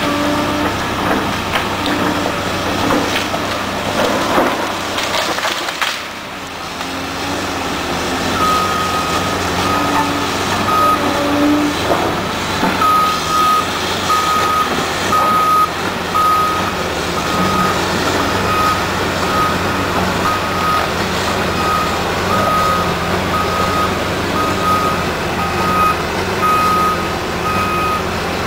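Large tracked excavator, a Cat 328D, running under load with a few sharp cracks in the first several seconds. From about eight seconds in, its travel alarm beeps steadily at about one and a half beeps a second as the machine tracks.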